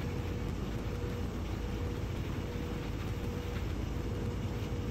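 Steady low hum and hiss of background room noise, with a faint steady whine running through it.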